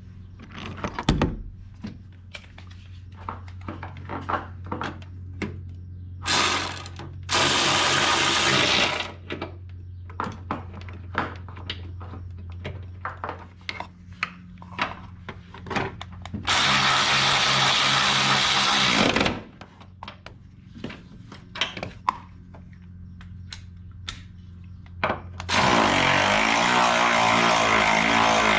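A power tool runs in short bursts, driving or removing bolts during engine assembly, with clicks and clatter of handling between the bursts. A longer, steady run starts near the end.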